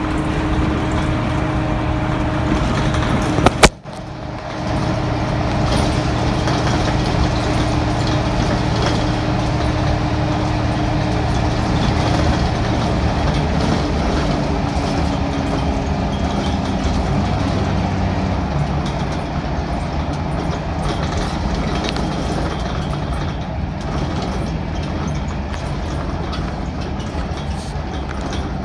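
Cummins 6BT diesel engine of a Dennis Dart SPD bus pulling hard in fourth gear on kickdown, a steady drone heard from inside the saloon along with road noise. A sharp bang about three and a half seconds in, and the engine gets a little quieter over the last several seconds as the kickdown ends.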